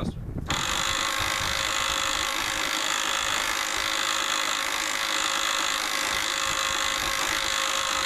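Master Lock 2953AT 12-volt DC portable winch running under load, its electric motor and gears giving a steady whine as it reels in cable to pull a lawn tractor. It starts about half a second in and holds at an even level.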